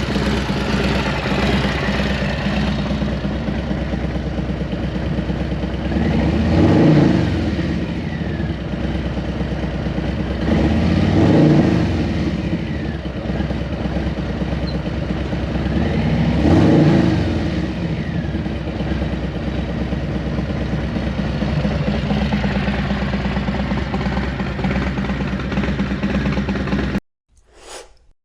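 Harley-Davidson Street Bob's Milwaukee-Eight 117 V-twin idling through a Thunderheader exhaust, blipped three times, each rev climbing and falling back to idle. The sound cuts off suddenly near the end.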